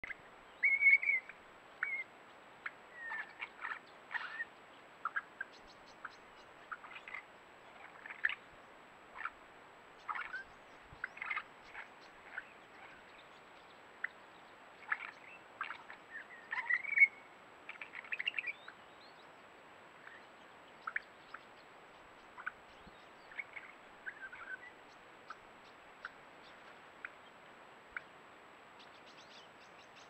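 Birds calling: many short chirps and whistles, scattered and busiest over the first two-thirds, over a faint steady hiss.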